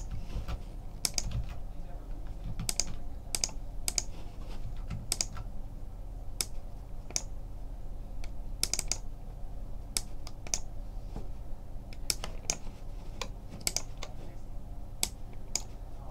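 Computer keyboard typing: irregular, sharp key clicks, a few per second, over a low steady hum.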